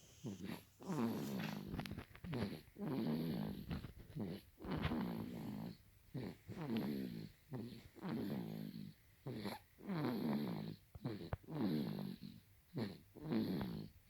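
A baby snoring in its sleep: short, rapid, regular snores of about one and a half a second, each with a slight pitch.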